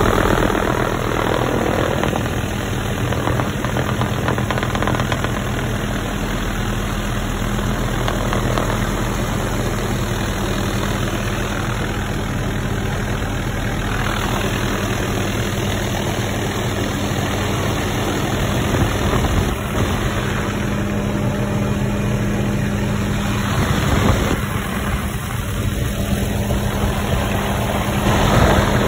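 Helicopter engine and rotor running steadily in flight, heard from inside the cabin with the doors off, under a steady rush of wind.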